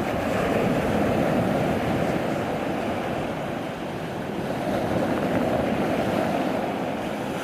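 Rough sea and wind in a storm, a continuous rushing noise that eases a little midway and then builds again.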